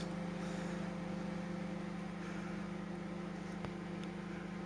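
George microwave oven running while heating water, a steady electrical hum with a light fan whirr.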